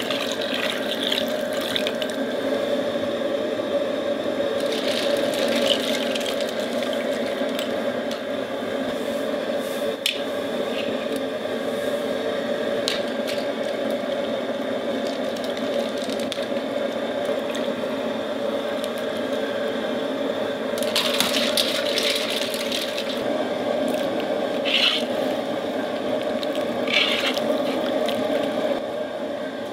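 Water running and bubbling steadily in a large cast-iron kazan cooking pot, with a few brief sharper noises in the last several seconds.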